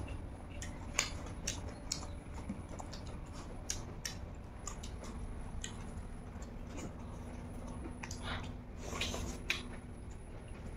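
Close-up eating noises of people eating rice and greens with their hands: scattered soft clicks and smacks of chewing, irregular, over a faint steady hum.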